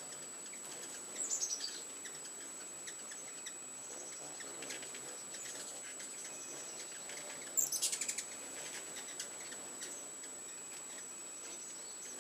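Ruby-throated hummingbirds chattering: two short bursts of rapid, high, falling chips, about a second in and again, louder, near eight seconds.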